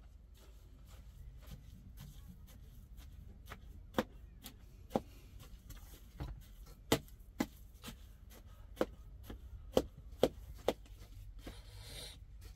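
A metal spoon stirring chopped greens and potato filling in a steel bowl, knocking against the bowl about eight times at irregular moments.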